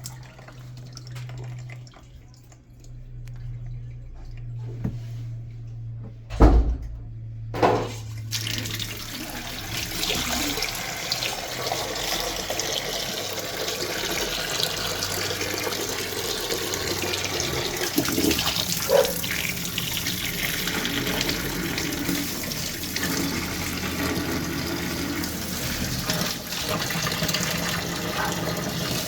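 Water rushing out through a twin-tub washing machine's drain once the socks blocking it are cleared, a steady gush from about eight seconds in. Before it there is a low hum and two knocks.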